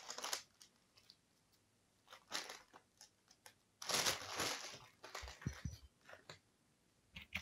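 Close handling noises: rustling bursts and a few soft, low knocks as a whole cucumber is brought in and set down in a small ceramic bowl.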